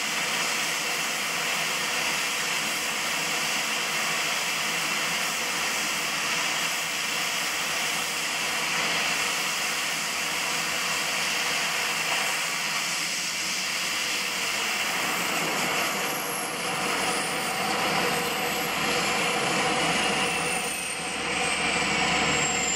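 Dornier 228's twin Garrett TPE331 turboprop engines running, a steady high whine over a broad rush of noise. Over the last few seconds the whine slowly drops in pitch.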